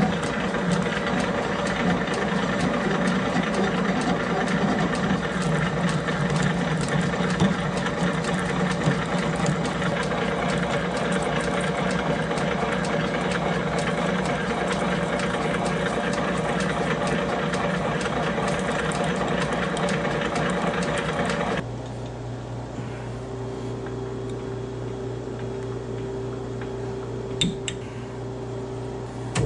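Metal lathe running with a steady whirring gear drive while a carbide cutoff tool parts off the shaft. About three-quarters of the way through the sound drops abruptly to a quieter, steady hum, with a short click near the end.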